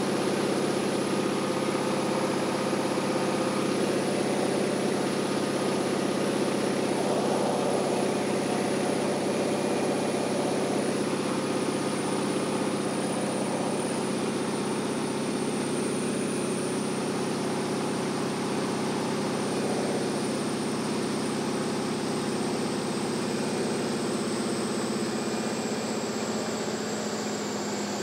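Cockpit noise inside a T-6 Texan: the Pratt & Whitney R-1340 Wasp nine-cylinder radial engine and propeller running steadily, with rushing air over the canopy. The level and pitch ease down slightly over the stretch.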